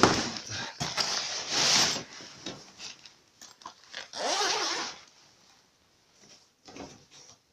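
Zipper of a boat's carry bag being pulled open in three long zips over the first five seconds, with the bag's fabric rustling.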